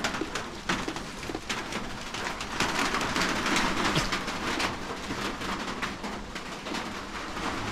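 Rain falling, with many drops tapping irregularly on nearby surfaces.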